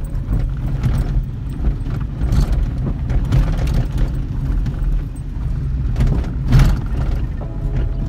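Car-cabin road rumble from driving over a rough, unpaved dirt road, with knocks from the bumps and a stronger jolt about six and a half seconds in. Faint background music plays underneath.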